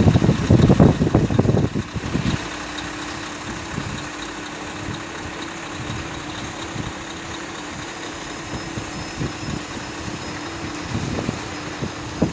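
A machine engine running steadily at idle with a constant hum, after about two seconds of wind buffeting the microphone.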